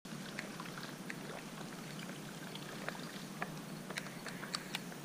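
Steady outdoor hiss at a pond's edge, with light ticks and clicks scattered irregularly through it.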